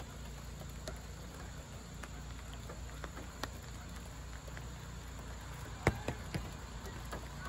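Outdoor field ambience: a steady low hum with a handful of short, sharp ticks scattered through it, the loudest about six seconds in.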